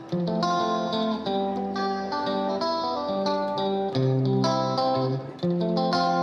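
Instrumental music led by plucked guitar notes playing a steady melodic line.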